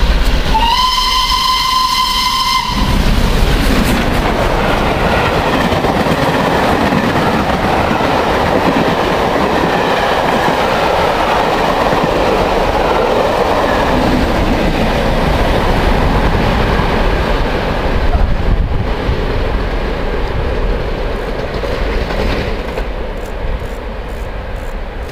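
SR King Arthur class 4-6-0 steam locomotive thundering through at speed. Its whistle sounds once for about two seconds near the start, then the engine and its coaches rush past with a loud, steady rumble that fades away over the last few seconds.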